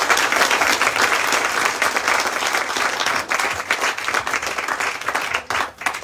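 A small seated audience applauding, the clapping dense at first and dying down to a few scattered claps near the end.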